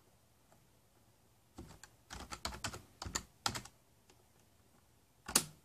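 Keystrokes on a computer keyboard: a run of quick key clicks starting about a second and a half in and lasting about two seconds, then one louder, sharper key press near the end.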